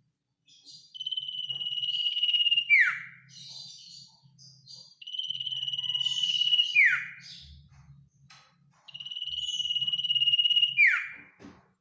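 Common iora singing: three long, steady trilled whistles on one pitch, each about two seconds long and each ending in a sharp falling note. Softer chirps come between them.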